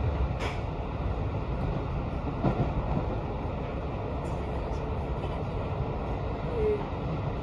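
Steady running noise inside the cabin of a JR Hokkaido 721 series electric train travelling at speed: a low rumble of wheels and running gear, with a couple of short knocks, about half a second and two and a half seconds in.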